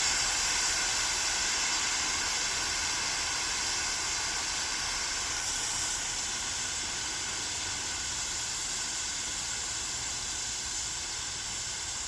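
Compressed air hissing steadily out of the front air-ride bags of a 1949 Chevy 3100 as the suspension is aired down. The air vents crazy slow through a temporary Y fitting on shop air, and the hiss fades gradually as the bags empty.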